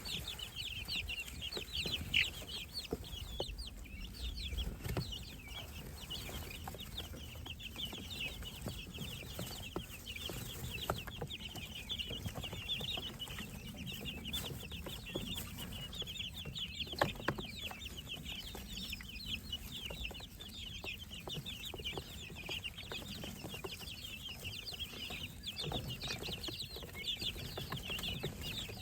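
A brood of baby poultry (chicks, guinea keets and ducklings) peeping continuously, with many short, high chirps overlapping. There are a few sharp clicks, the loudest about seventeen seconds in.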